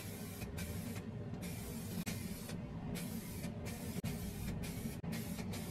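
Aerosol spray paint can spraying in a series of short hissing bursts with brief gaps between them, over a steady low hum.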